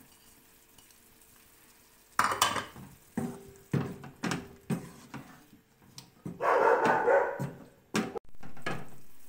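Wooden spatula scraping and knocking against a wok as chicken and diced carrot are stirred. It starts about two seconds in, with roughly a stroke every half second and a longer scrape near the middle.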